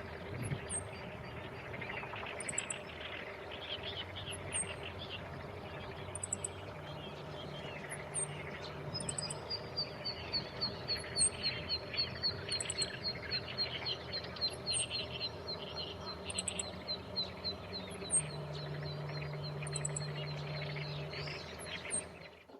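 Male meadow bunting giving short, sharp call notes mixed with somewhat higher calls while holding food in its bill, which the recordist takes as a possible sign of a nearby nest with waiting chicks. A long, high, slightly falling trill runs through the middle, with a faint low hum underneath.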